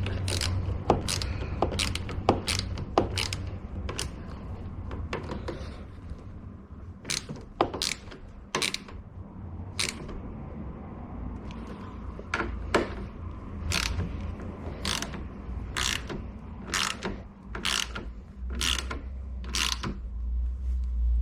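Hand ratchet clicking in a long series of short, sharp clicks as it tightens the mirror's mounting bolts by hand. The bolts thread into plastic, so they are brought up gently rather than driven with a power tool.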